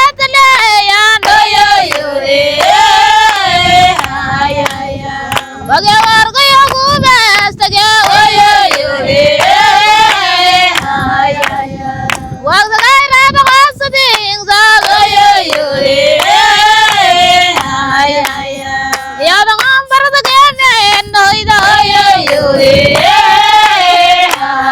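Datoga traditional dance song: a group of voices singing a wavering, repeated phrase that comes round about every six seconds, with sharp hand claps throughout.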